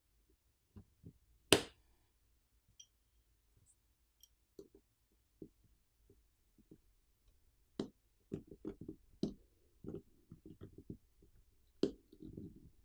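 Faint scattered clicks and taps of a tool working on a wall charger's plastic housing as it is pried open. There is a sharp click about a second and a half in, a run of quick clicks in the second half, and a brief scrape near the end.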